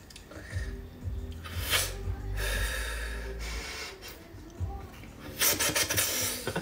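Background music with a steady bass line, overlaid by short breathy noise bursts: one about two seconds in, a longer one soon after, and a quick cluster near the end.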